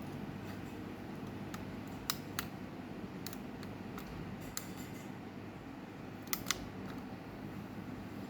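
York ducted air conditioner running with a steady low hum of fan and airflow. Several short sharp clicks sound over it, the loudest as two pairs about two seconds in and about six seconds in.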